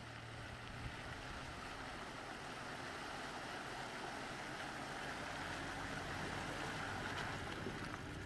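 Toyota Land Cruiser pickup driving through shallow river water: a steady rush of water washing and splashing around its wheels over the engine, slowly growing louder as it draws near.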